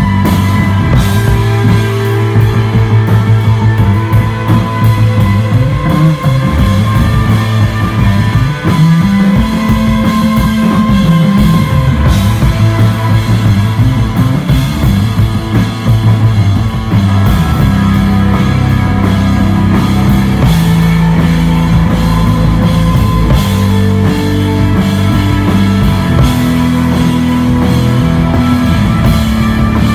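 Desert rock band playing an instrumental passage live, with electric guitar and bass holding long notes that change pitch every few seconds over a steady drum kit.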